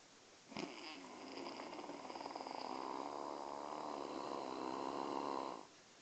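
A sleeping person snoring: one long snore lasting about five seconds, starting about half a second in and stopping abruptly near the end.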